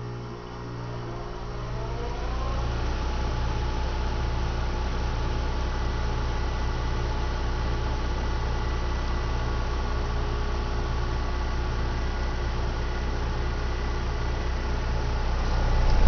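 Westinghouse (Nordyne) two-stage heat pump outdoor unit with a Copeland scroll compressor starting up in heat mode. Its hum rises in pitch and gets louder over the first two to three seconds, then settles into a steady running hum.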